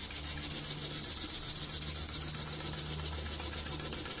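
Small model wobbler steam engine running on compressed air, its oscillating cylinder puffing exhaust in a fast, even rhythm, with a low hum underneath.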